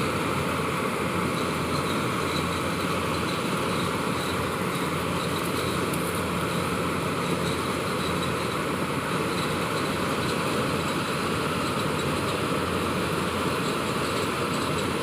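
Malkit combine harvester's diesel engine running steadily under a constant, even noise.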